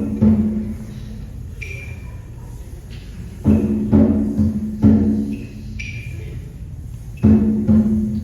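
Concert band percussion: heavy timpani and drum strokes in groups of one to three, a few seconds apart, with short high ringing notes between them over a steady low rumble.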